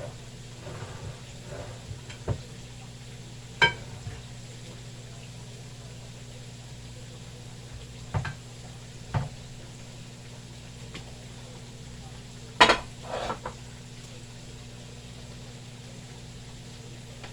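Kitchen utensils knocking and clinking against a pot or frying pan, about six separate knocks with the loudest, briefly ringing one near the end, over the faint sizzle of chicken frying in oil and a steady low hum.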